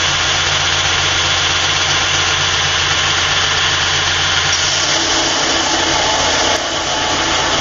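Burr King 960-200 belt grinder running at full speed with a steady motor hum and belt hiss. About two-thirds of the way through the sound changes as the 1095 steel blade in the taper jig meets the belt over the platen and grinding begins.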